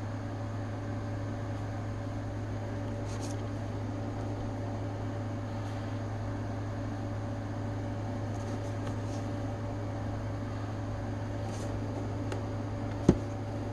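Steady low mechanical hum of room machinery, unchanging throughout, with a single sharp click near the end.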